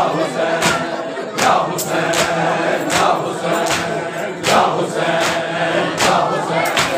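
A crowd of men chanting a mourning lament in unison, with matam chest-beating slaps landing in time about every three-quarters of a second.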